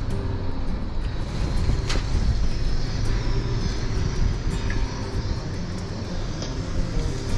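Toyota 4Runner TRD Pro's 4.0-litre V6 crawling in four-wheel-drive low over a rough dirt track: a steady low engine and tyre rumble with scattered knocks from rocks under the tyres. Near the end a hiss of brush scraping along the body.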